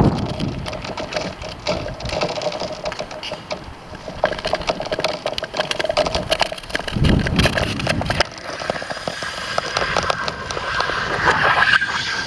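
Thin lake ice crackling and ticking, heard through the ice by a camera lying on it. A dense run of sharp clicks comes with faint ringing tones, one lower in the middle and one higher near the end, and there is a brief low thud about seven seconds in.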